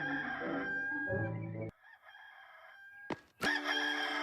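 Hollywood Edge 'Rooster 2 Crow' stock sound effect of a rooster crowing, with music under it. It breaks off a little under two seconds in, and after a short click a new crow starts near the end.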